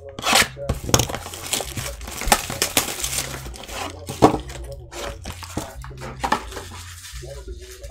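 Shrink-wrapped trading-card boxes and packs being handled: irregular crinkling of the plastic wrap, with scrapes and sharp knocks of the cardboard boxes on the table.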